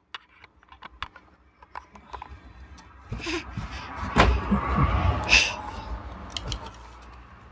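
Close handling noise on the webcam's microphone as a child's hand and head bump and rub against it: light scattered taps at first, then a louder stretch of rumbling and knocks about three seconds in, easing off after about five and a half seconds.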